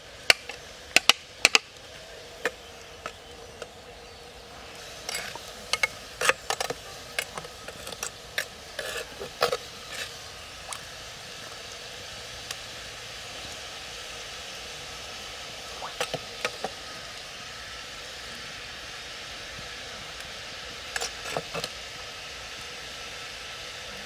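Metal tongs clicking and tapping against a clay pot's rim and a plastic tray while shredded cabbage is dropped into the steaming pot, in irregular clusters of sharp clicks over a steady hiss.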